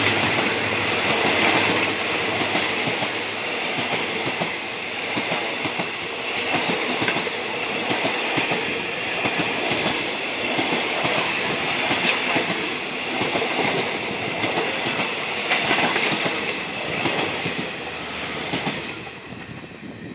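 Passenger coaches of a train on the adjacent track rushing past close by, wheels clattering over the rail joints in a steady clickety-clack, heard from an open window of a moving train. The noise falls away near the end as the last coach goes by.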